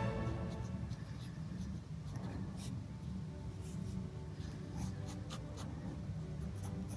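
Fine-tipped ink pen scratching on sketchbook paper in short, irregular strokes as a drawing is inked, over a steady low hum.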